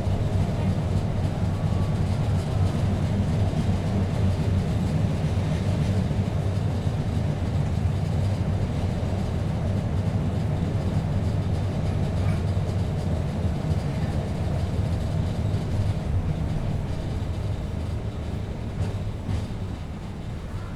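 1951 PCC streetcar running along the track: a steady low rumble of wheels on rail that grows quieter over the last few seconds.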